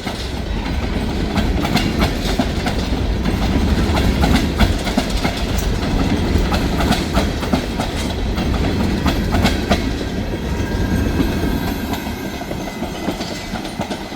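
Train rolling past: a steady low rumble with wheels clacking over rail joints, easing off a little near the end.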